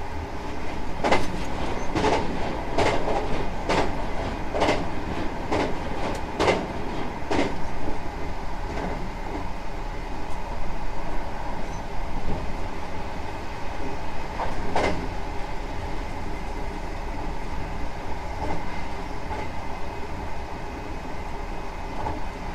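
Hankyu 9000 series electric train running, heard from inside the car: a steady rumble with a regular clack of the wheels over rail joints about once a second for the first several seconds, then a single clack near the middle.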